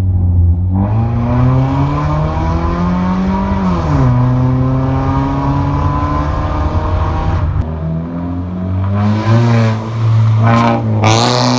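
Maruti Suzuki Ciaz with an aftermarket exhaust, running loud under acceleration. The pitch climbs for a couple of seconds, drops at a gear change about four seconds in, then holds fairly steady, with a few quick revs near the end.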